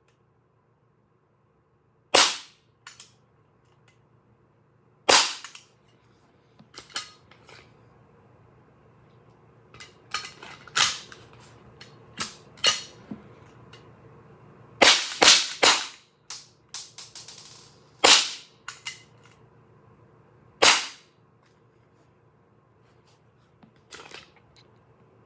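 Glock 17 Gen 3 replica BB gun firing: sharp pops at irregular intervals of a couple of seconds, with a quick string of several shots about two-thirds of the way in and quieter clicks between the shots.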